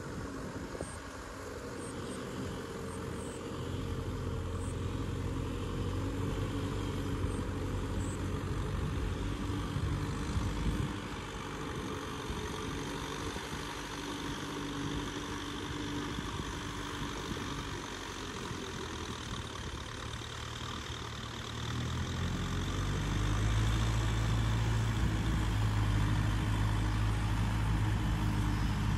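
Kubota M6040SU tractor's diesel engine working steadily under load as it pulls a cultivator through a flooded rice paddy, heard from a distance. It grows clearly louder and deeper about 22 seconds in as the tractor comes nearer.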